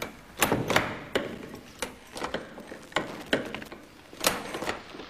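Charles Wheatstone's early brass typewriter being worked by hand: about a dozen sharp mechanical clicks and clacks at an uneven pace, some close together in pairs, as its keys and geared type wheel move.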